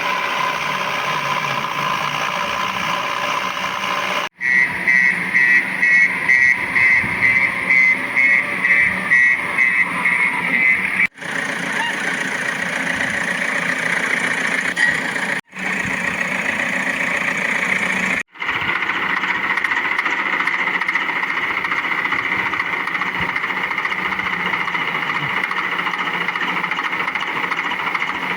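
Toy construction and farm vehicles running with a steady engine-like hum, in several short clips joined by sudden cuts. For several seconds after the first cut, a regular electronic beeping pulses about twice a second over the hum.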